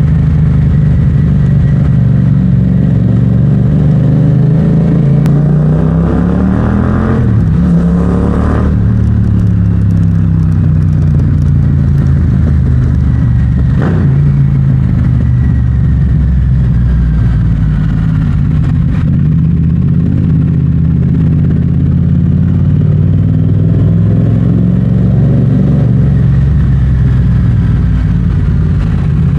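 Yamaha MT-07's parallel-twin engine running through an Akrapovic exhaust, loud and steady while ridden. About seven seconds in, the engine note swings up and down with the throttle.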